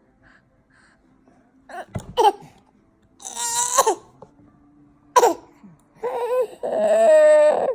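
A baby's forced, fake coughs: short voiced coughs about two, three and a half and five seconds in, then a longer voiced, cough-like sound near the end.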